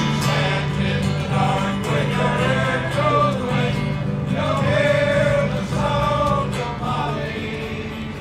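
Male chorus singing slowly in long held chords, with the low voices sustaining steady notes underneath.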